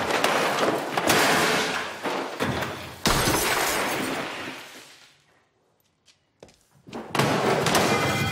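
Glass shattering and furniture crashing as a house interior is smashed apart. A sharp crash about three seconds in fades away to near silence, then a few faint knocks, and loud crashing starts again near the end.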